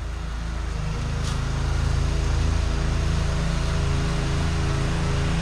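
Engine-driven pressure washer running steadily while spraying through a tall-reach nozzle tip, the engine's drone under a spray hiss, getting louder over the first couple of seconds.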